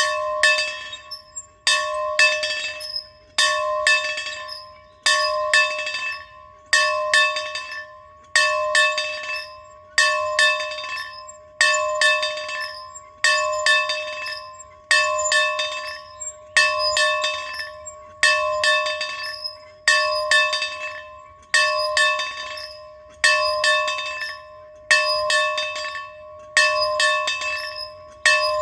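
A bell ringing in a steady rhythm, struck about once every second and a half or so, each stroke a quick double strike that rings on and fades before the next.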